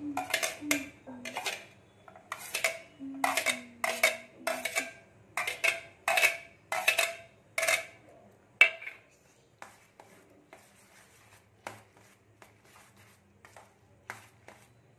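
Steel spoon striking and scraping a stainless steel plate and pot, sharp ringing clinks about twice a second as the chopped vegetables are knocked off the plate into the pot. After about nine seconds the clinks turn fainter and sparser as the noodles are stirred.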